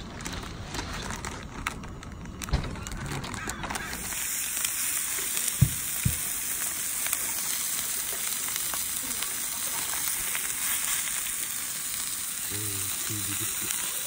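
Sausage patties sizzling on a griddle over a propane camp stove, a steady frying hiss that sets in about four seconds in. Two sharp knocks come a couple of seconds later.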